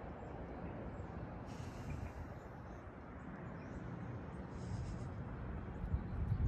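Steady low rumbling background noise with a faint hiss that comes up briefly about a second and a half in and again near five seconds.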